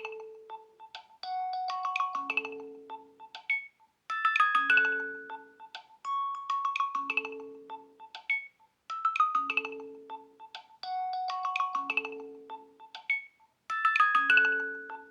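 An iPhone 15 Pro ringtone: a short melody of struck, decaying tones with sharp clicks among them, looping about every four and a half seconds.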